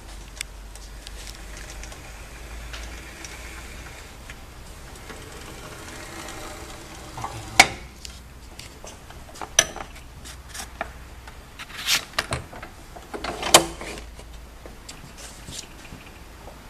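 A manual glue binding machine being worked: a series of sharp mechanical knocks and clatters over a low steady hum, the loudest about eight and thirteen and a half seconds in.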